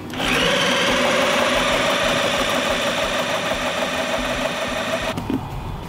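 Corded electric drill with a mixing paddle spinning up and running steadily, a whine over a broad noise, as it mixes thin-set mortar in a plastic bucket; it cuts off sharply about five seconds in.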